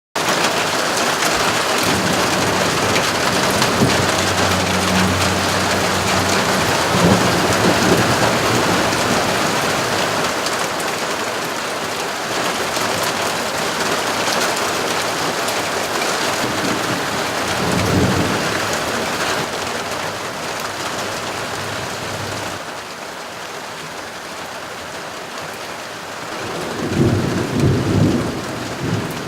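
Thunderstorm: rain pouring steadily, with rolls of thunder rumbling in the first third and again about two-thirds in, and a louder run of thunder near the end.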